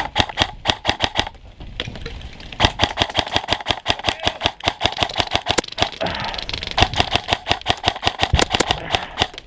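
Airsoft guns firing rapid strings of shots, three strings with short pauses between them.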